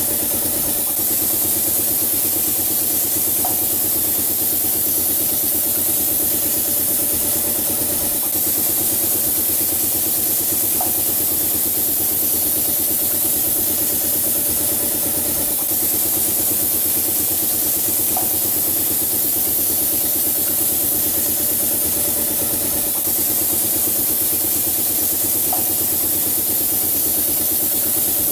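Automatic wall-painting machine running: a steady mechanical hum with a strong high hiss as its spray gun sprays and the carriage travels along chain-driven rails. A faint short chirp comes about every seven seconds.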